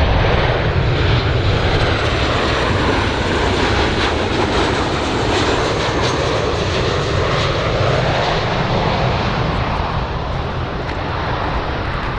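Large airplane's engines running loud and steady, a dense rushing noise with a strong low rumble, easing off slightly near the end.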